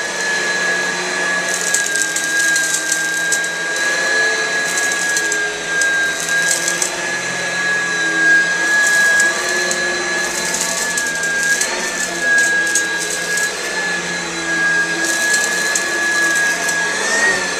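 Oreck upright vacuum cleaner running steadily with a high motor whine, its new brush roll picking up dog hair, with patches of crackling every few seconds.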